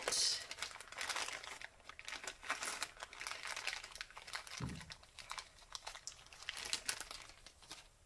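Thin clear plastic packaging bag crinkling as it is handled and opened. The crackles come thick at first and thin out toward the end, with one soft low thump about halfway through.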